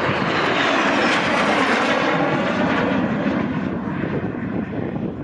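Canadair CT-133 Shooting Star's turbojet engine as the jet flies past low: a loud rushing jet sound with a whine that falls in pitch. It is loudest a second or two in and eases off toward the end.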